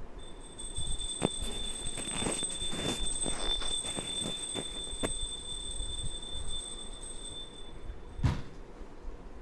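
A perforated steel spatula scraping through flour roasting in ghee and knocking against a non-stick kadhai, in a string of short strokes with a firmer knock about eight seconds in. A steady high-pitched whine sounds underneath and cuts off suddenly near the end.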